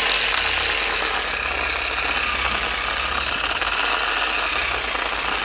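Angle grinder fitted with a sanding disc, running steadily at reduced speed through a simple home-made speed controller; its whine wavers slightly in pitch.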